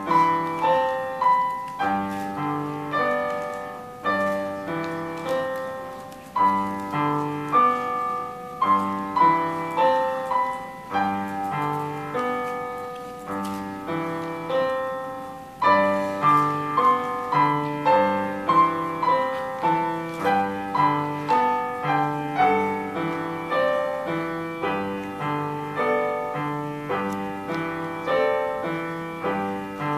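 Upright piano played four hands as a duet: a melody over a steady, repeating bass accompaniment. About halfway through a phrase dies away briefly and the next one starts louder.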